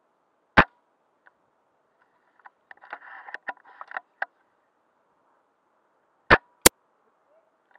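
Snow Wolf M24 spring-powered bolt-action airsoft sniper rifle firing: a sharp crack about half a second in, then a run of small clicks and rattles around the middle. Near the end come two more sharp cracks close together.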